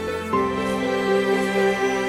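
Slow, sad-sounding background music with sustained chords; the harmony changes about a third of a second in.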